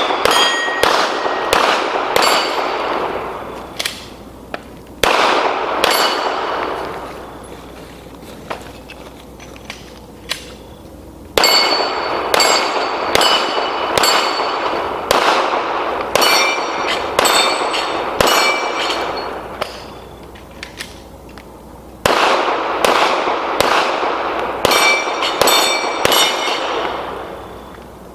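Pistol shots fired in rapid strings at steel plates, each followed by echo and a high ringing clang of struck steel. There are several strings, with pauses of a few seconds between them.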